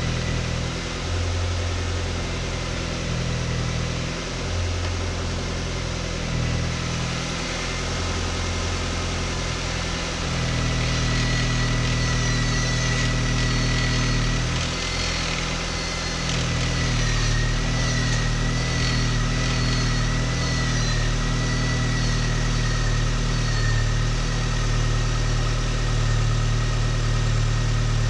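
An R50 Mini Cooper's petrol four-cylinder engine idling steadily while its cooling-fan circuit is tested. About ten seconds in the sound gets louder and a steady high whine joins the engine hum.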